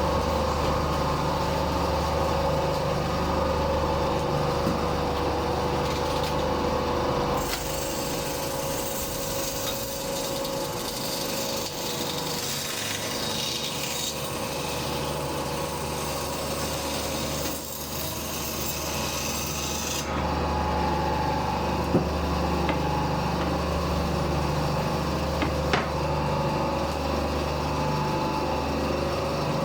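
Parkside 350 A1 bandsaw running with a steady motor hum. From about seven seconds in, the blade cuts through wood for about thirteen seconds, a rasping hiss over the hum, and then the saw runs free again.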